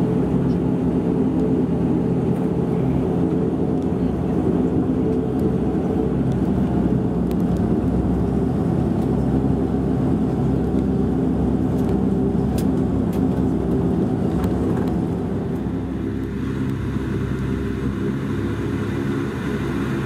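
Cabin noise inside a Bombardier Dash 8-Q400 taxiing: the drone of its Pratt & Whitney PW150A turboprop engines and propellers, a steady hum made of several low tones. It eases slightly about three quarters of the way through.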